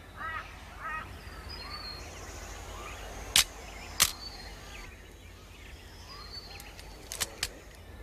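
Birds calling in forest, with a few short arched chirps early on and brief high whistled notes that step downward, repeated several times. Sharp clicks cut through, two in the middle about half a second apart and a quick pair near the end, louder than the birds.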